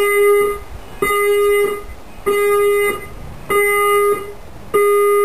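Fire alarm emergency warning system sounding its alert tone: a steady single-pitch beep around 420 Hz, five times, each about two-thirds of a second long and spaced about 1.25 s apart. This is the pulsed alert signal such systems play when the fire alarm is triggered.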